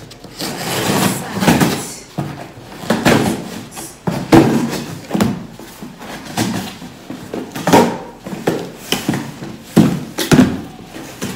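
Cardboard shipping box being cut open and handled: scraping and rustling cardboard with repeated knocks and thumps, about one a second, as the tape is slit and the flaps and box are pulled about.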